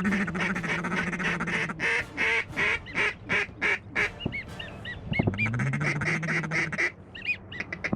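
Duck calling: a fast run of short quack-like notes with brief high whistles mixed in. A long low drone sounds at the start and again about five seconds in.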